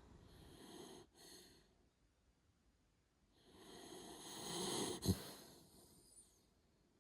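A sleeping pet snoring faintly: a short soft breath about a second in, then a longer snore that swells and ends in a brief sharp catch about five seconds in.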